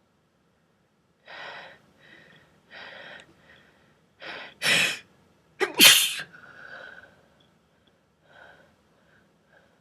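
A person's breathy sneeze: several short catching in-breaths build up, then one loud sneeze about six seconds in, trailing off in a breath and a few small sniffs.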